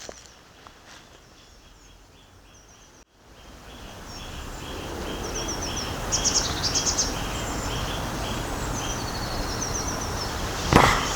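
Small woodland birds singing: one repeats a short high note about three times a second while another adds quick higher chirps and trills midway. The sound cuts out for an instant about three seconds in, after which a steady background hiss is louder, and a sharp knock comes near the end.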